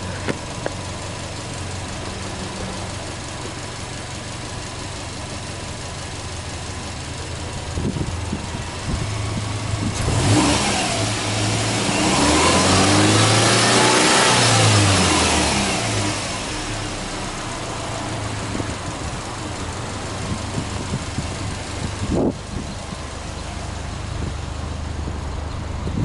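Subaru GRB Impreza WRX STI's turbocharged flat-four boxer engine idling steadily, then revved in place: a few short blips, then held at higher revs for a few seconds with the pitch rising and falling, before dropping back to idle.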